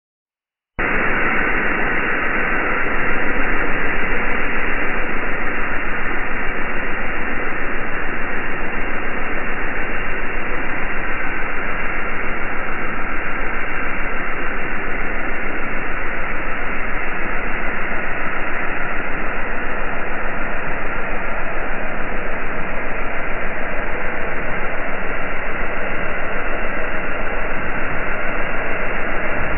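Steady hiss-like noise with no distinct events, stepping up a little about three seconds in.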